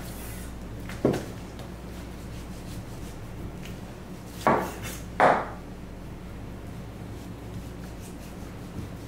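Butcher's knife work on a raw wagyu knuckle on a cutting board: three short dull knocks, one about a second in and two close together around four and a half and five seconds in, from the knife and meat against the board.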